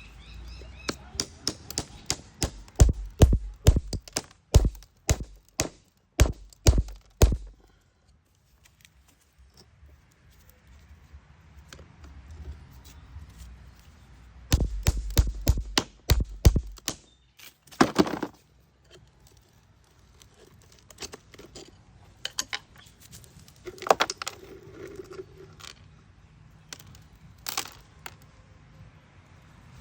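Hard knocks and cracks on stone as a beach-found rock is struck and pieces break off it: a quick run of sharp blows for the first several seconds, another burst about halfway through with one loud knock just after, then lighter scattered taps.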